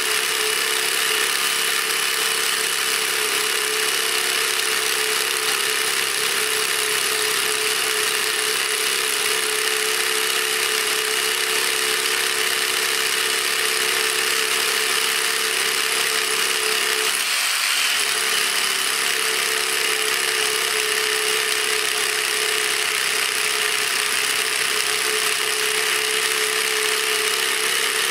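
DeWalt DCH263B cordless brushless SDS-plus rotary hammer hammer-drilling continuously into concrete with a one-inch bit, a steady hammering drone that eases off for a moment about two-thirds of the way through.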